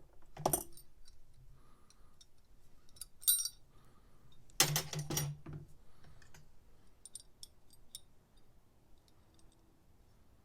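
Steel adjustable pliers and small metal parts clinking as they are handled and set down: a single knock, a ringing clink about three seconds in, a louder run of knocks around five seconds, then a few light ticks.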